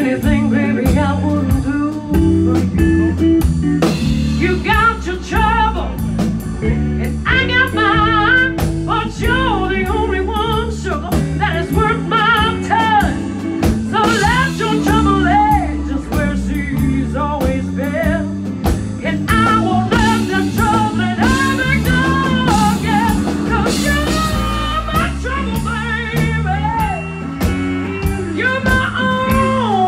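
A band playing a blues song: a stepping bass line and a steady drum beat under a wavering, bending lead melody.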